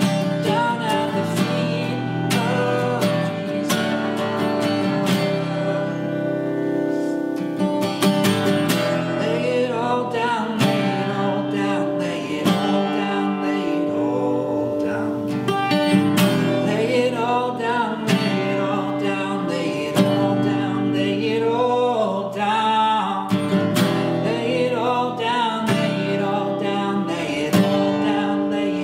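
A man singing a worship song to his own strummed acoustic guitar.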